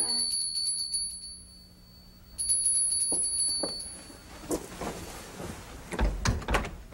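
A doorbell rings twice, each ring a rapid high trill lasting about two seconds. Footsteps and a few knocks follow, with the loudest thumps near the end.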